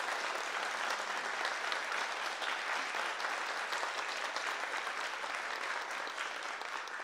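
Audience applauding steadily: many hands clapping together in a dense, even wash of claps.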